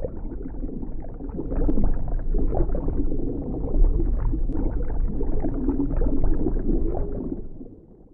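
Muffled underwater rumble and gurgle of rising air bubbles, with a deep low bottom, fading out near the end.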